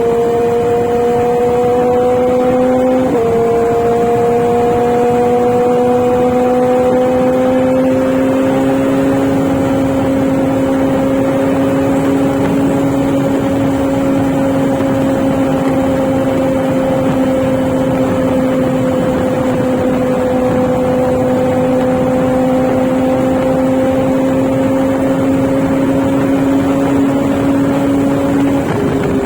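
Inline-four sport motorcycle engine running under steady throttle while riding. Its note drops abruptly about three seconds in, then rises slowly and evenly, and changes again near the end.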